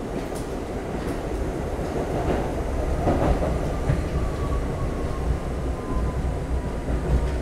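R32 subway car running on the rails, heard from inside the car: a steady low rumble with a few sharp clicks from the wheels, and a faint whine that slowly falls in pitch as the train slows into a station.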